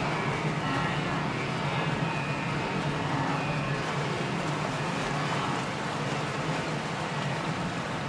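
A large herd of wildebeest crowding down a bank into a river: a steady din of splashing water and trampling hooves.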